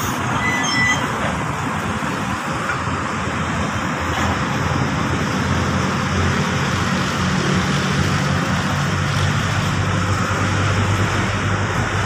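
Heavy diesel machinery running steadily under an even wash of outdoor noise, with its low engine hum growing stronger from about five seconds in.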